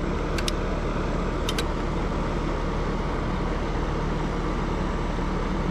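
Two double clicks about a second apart in the first two seconds, from the buttons on an HVAC outdoor unit's control-board keypad being pressed, over a steady low hum and hiss.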